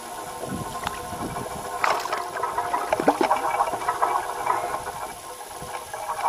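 Water splashing and sloshing, busiest from about two to five seconds in, over a steady faint hum.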